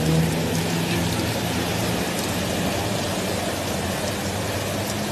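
A car driving through deep floodwater, its engine a steady low hum under the rush of water and heavy rain.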